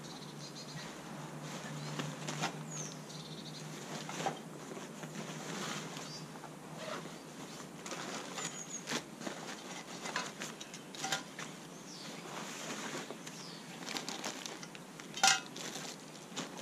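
Rustling and clicking of camping kit being handled and packed by hand: plastic bin liners and a nylon stuff sack, with a sharp knock about three quarters of the way through.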